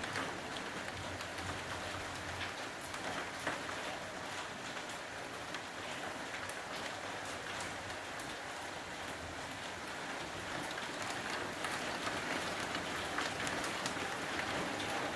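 Heavy rain falling steadily, an even hiss with many individual drops ticking close by, growing a little louder near the end.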